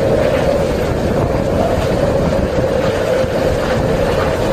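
Typhoon-force wind and driving rain, with a steady howl wavering in pitch and the wind buffeting the microphone.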